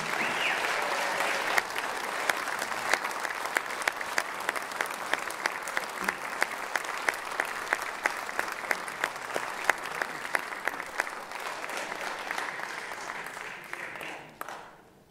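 Audience applauding steadily, with sharp individual claps standing out, dying away near the end.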